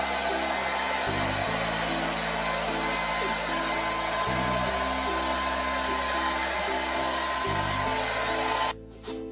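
A steady whooshing air noise with a thin whine, over background music with a low, stepping bass line; the whooshing cuts off abruptly near the end.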